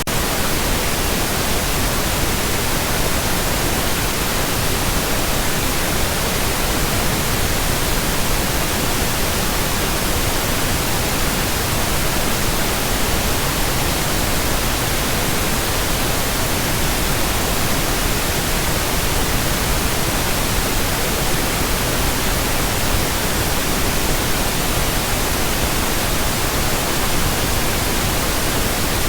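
Steady pink noise: an even, unchanging hiss spread over the whole range from deep to high, with no breaks or changes in level.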